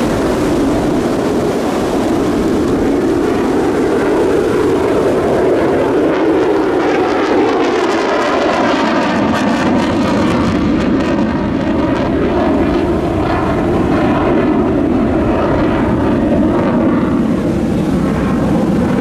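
F-35 Lightning II fighter's single afterburning turbofan engine, a loud, steady jet noise. Wavy tones slide up and down through it for much of the time as the jet flies past.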